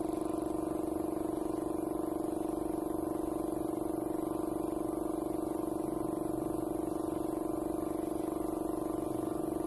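Air compressor running with a steady hum that pulses rapidly and evenly, supplying air through the hose to a paint spray gun.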